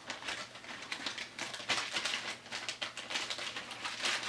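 Clear plastic sleeves crinkling and rustling in the hands as embroidered patches are handled, a run of quick, irregular crackles.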